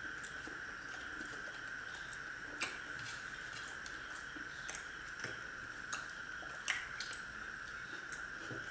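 Quiet eating by hand: scattered small clicks and taps as fingers tear paratha and touch plastic plates, the sharpest about two and a half and six and a half seconds in, over a steady high-pitched hum.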